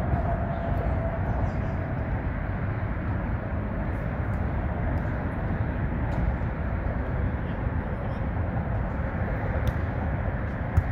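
Steady rumble of road traffic on the elevated roadway overhead, with a few faint sharp taps scattered through it.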